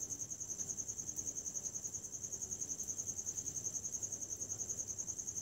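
A cricket chirping: one steady high trill pulsing about eight times a second.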